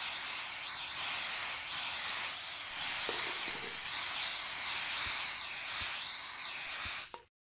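Aerosol spray paint cans hissing in a steady rush, cutting off sharply near the end.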